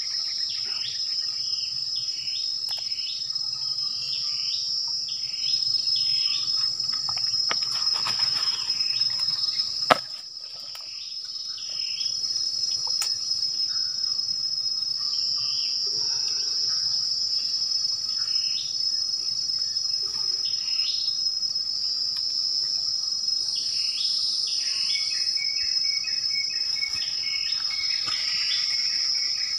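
Steady shrill drone of a tropical forest insect chorus, with many short falling chirps over it and a fast pulsed trill near the end. A single sharp click about ten seconds in, after which the sound is briefly muffled.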